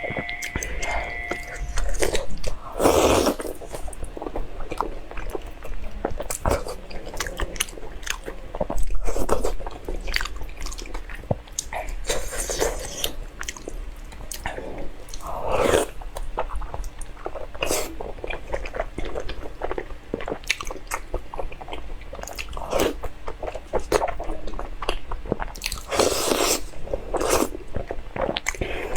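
Close-up eating sounds of seafood: biting, crunching and chewing, with many sharp clicks and crackles and a few longer, louder crunches about three seconds in, near the middle and near the end.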